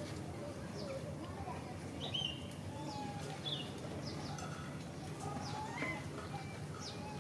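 Scattered short, high bird chirps and whistled notes, a few each second, over a steady low background murmur.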